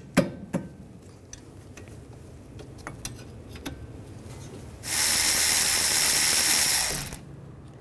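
A power ratchet with a 14mm socket runs for about two seconds with a loud hissing whir, loosening a rear brake caliper bolt, after a few light clicks of the socket being fitted.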